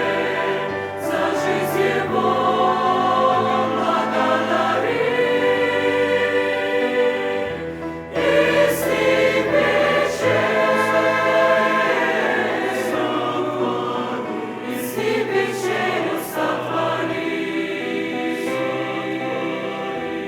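Church choir singing a hymn in several parts, holding sustained chords.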